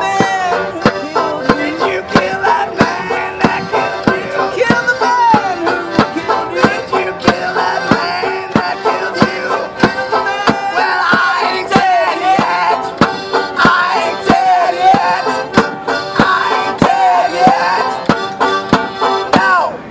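Piano accordion and banjo playing a folk song together, the accordion holding chords under a banjo picked to a steady beat, with a man singing over them.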